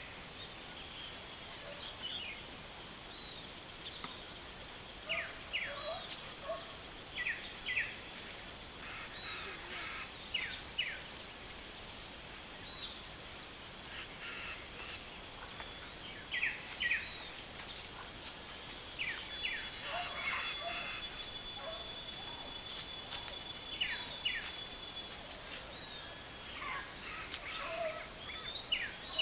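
Blue-black grassquits and other small birds calling: short, sharp high chirps every second or two, some falling notes between them, over a steady high-pitched insect drone.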